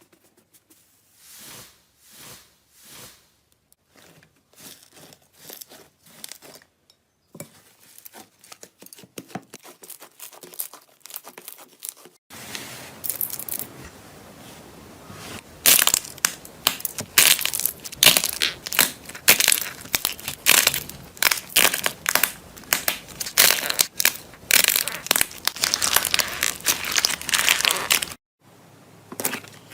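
Slime being handled and pressed by hand, heard as a series of crackly, crunchy pops and squishes. The sounds are sparse and soft at first, then after a cut turn into dense crackling and crunching that grows loud through the second half and stops abruptly near the end.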